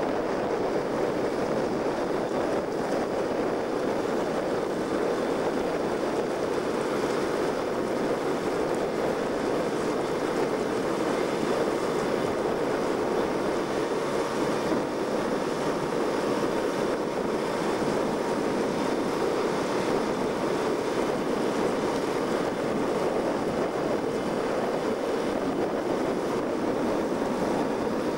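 Steady rushing noise of strong wind and choppy water on the camcorder microphone.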